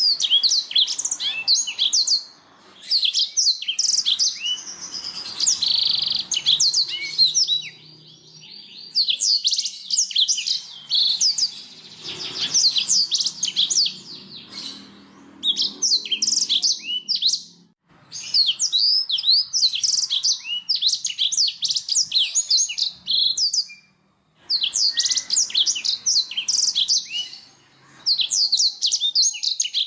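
Domestic canary singing: long phrases of fast trills and high chirps, each lasting several seconds, with short pauses between them.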